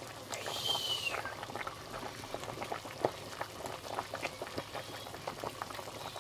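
Pot of vegetable broth with mushrooms and green beans at a rolling boil, its bubbles popping in a steady crackle. About half a second in comes a short slurp with a falling whistle as the broth is sipped to taste it.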